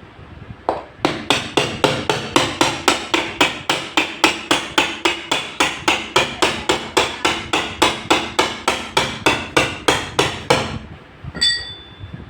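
Rapid, evenly spaced hammer strikes, about four a second for some ten seconds, then a single ringing clink near the end.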